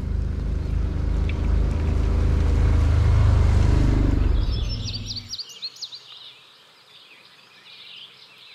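Side-by-side utility vehicle's engine running as it drives up close, growing louder, then cutting off abruptly about five seconds in. Birds chirp and sing through the rest.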